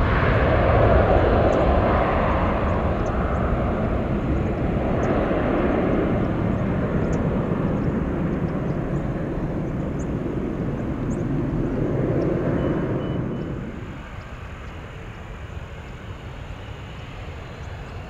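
Jet airliner engine noise as a plane passes: a loud, steady rushing rumble that swells and then fades away about fourteen seconds in, leaving a quieter low rumble.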